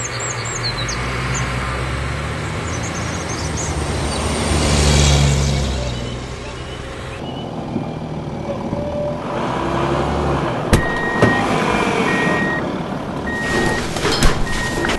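Road traffic with a car passing by, swelling to a peak about five seconds in. After a drop, a garbage truck's reversing beeper sounds in repeated evenly spaced beeps over its engine, with a few sharp knocks.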